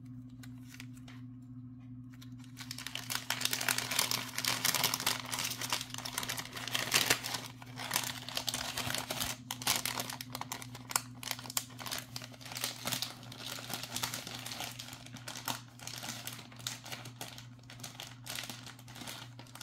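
Plastic packaging crinkling and rustling as it is handled, with many small clicks and taps, starting about two and a half seconds in. A low steady hum runs underneath.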